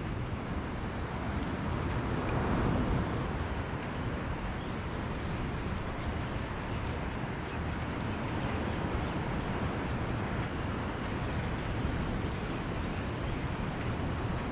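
Steady outdoor background noise with no single clear source, a mix of wind on the microphone, surf and distant traffic, swelling briefly about two seconds in.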